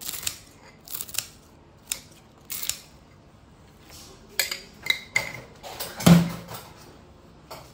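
A spoon sprinkling crushed peanuts over noodle bowls in clear plastic takeaway tubs: a string of short clicks and rattles from the spoon and the plastic, with a louder knock about six seconds in.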